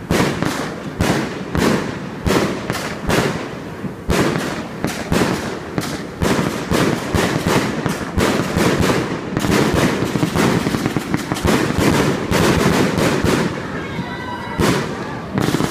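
Aerial fireworks firing and bursting overhead: a rapid, continuous string of sharp bangs and crackles, several a second.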